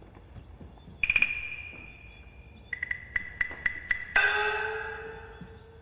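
Short percussive music cue: one struck note rings out about a second in, a quick run of light taps follows, and a louder struck chord near the end rings and fades.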